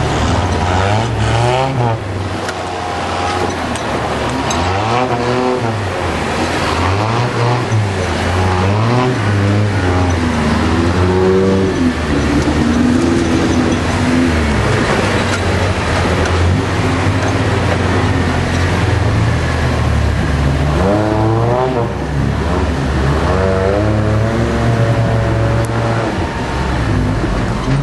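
An off-road 4x4's engine revving up and down again and again as it crawls over rough ground.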